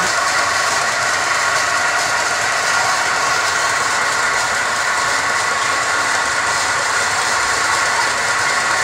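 Motorized belt sander with a 1 HP electric motor and belt drive running steadily, a constant hum with several held tones. The sanding belt runs free, without a workpiece pressed to it.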